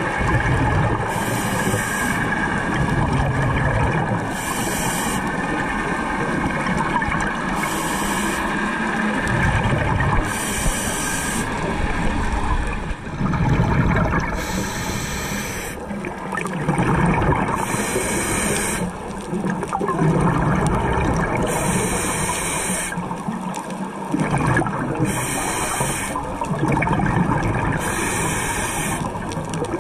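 Scuba regulator breathing heard through an underwater camera: a hiss on each inhale alternating with a rush of exhaled bubbles, one breath every three to four seconds.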